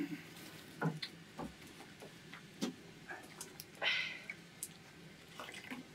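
Wood fire crackling in a small sheet-metal stove: scattered sharp pops and snaps, with a short hiss about four seconds in.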